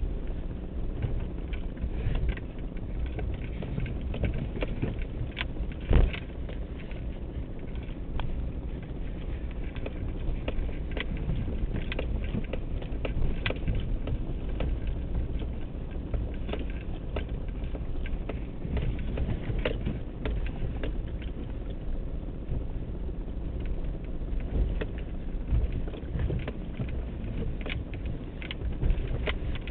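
Suzuki Grand Vitara driving over a snow-covered track, heard from inside the cabin: a steady low rumble of engine and tyres with frequent knocks and rattles as it bumps along, the loudest thump about six seconds in.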